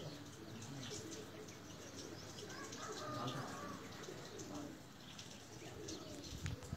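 Faint cooing of domestic pigeons.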